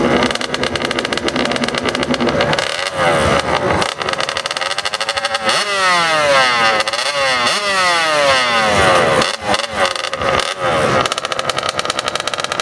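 Honda two-stroke dirt bike engine running and being revved up and down several times, its pitch rising and falling in repeated sweeps through the middle, otherwise a fast, even popping beat.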